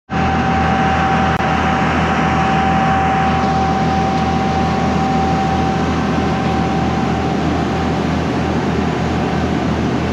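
Boat engine running steadily underway, a low drone with a steady high whine over it that fades out about eight seconds in.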